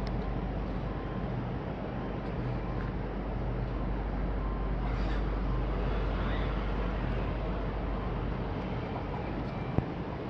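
Steady hum and rumble of a station platform with an electric train standing at it. There is a sharp click near the end.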